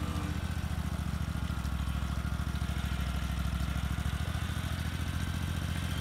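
Backhoe loader's engine running steadily at low revs as the machine drives slowly, with a fast, even chug in its low note.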